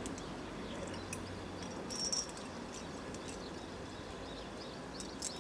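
Steady outdoor background hiss with scattered faint, short, high ticks, and one brief, louder ringing tick about two seconds in.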